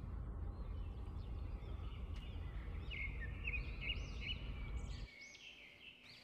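Small birds chirping in repeated short, arching notes over a low rumble on the microphone; the rumble cuts off abruptly about five seconds in while the chirping goes on.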